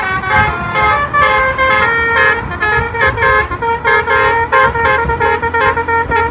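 Telolet basuri bus horn playing a quick multi-note tune, several horn tones sounding together and changing pitch a few times a second.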